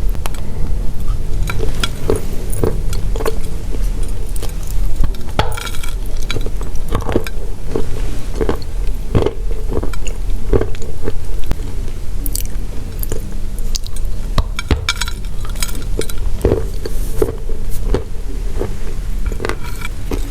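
Dry pressed chalk and clay tiles being bitten and chewed close to the microphone: irregular crisp crunches and crackles, with a steady low hum underneath.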